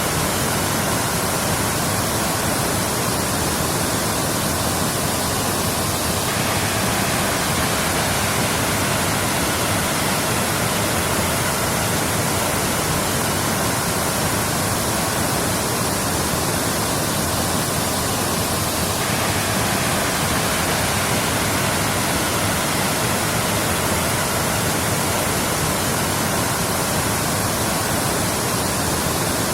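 Waterfall: a steady, unbroken rush of falling water, with a slight shift in its tone about six seconds in and again near nineteen seconds.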